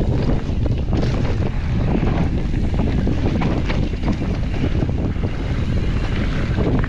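Wind rushing and buffeting the microphone of a camera riding on a mountain bike as it rolls along a dirt trail, with scattered clicks and knocks from the bike and tyres over the ground.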